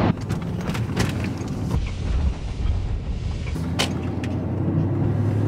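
Road rumble and engine hum inside a moving car's cabin, with a couple of sharp clicks. A steady low drone sets in about halfway through.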